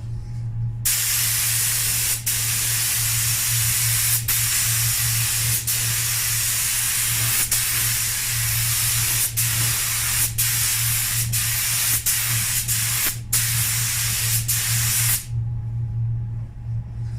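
Compressed-air paint spray gun hissing in long bursts, with about a dozen brief breaks as the trigger is let off, stopping shortly before the end.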